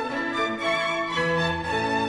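Background music: an orchestra with violins playing a lively melody of held notes that moves up and down step by step.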